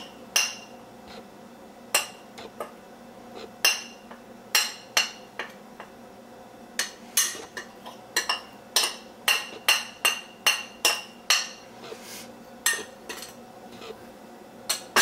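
Metal spoon clinking and tapping against a dish while a soft cheese stuffing is scooped out and spooned into a chicken breast: irregular sharp taps, coming more often from about halfway through.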